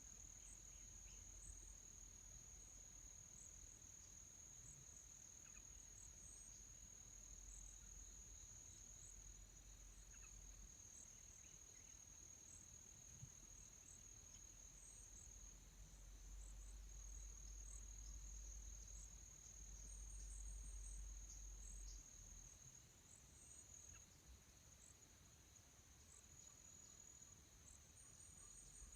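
Faint, steady high-pitched insect drone of crickets, over a low rumble that grows stronger in the middle.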